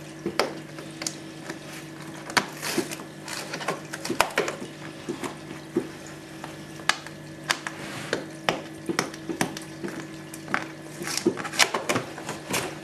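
Fingernails picking and peeling at the seal of a cardboard box, a string of irregular sharp scratches and clicks, over a steady low hum.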